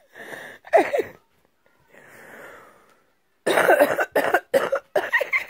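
Coughing: a couple of softer hacks, then a rapid run of short, loud cough bursts in the second half.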